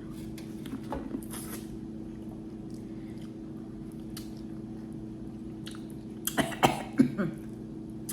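Mealtime eating sounds over a steady low hum: scattered small clicks and a brief rustle as seafood-boil food is handled and chewed, then a short cluster of louder sharp sounds, cough-like, about six to seven seconds in.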